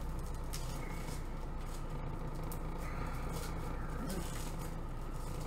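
Clear plastic bag crinkling and rustling as hands unwrap a packaged formicarium, over a steady low hum.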